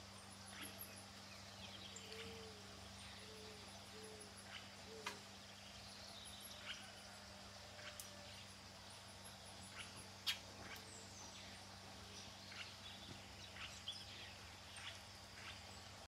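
Faint wild bird calls: short runs of thin, high chirps throughout and a series of low hooting notes between about two and five seconds in. Scattered sharp clicks sound over a steady low hum, the loudest about ten seconds in.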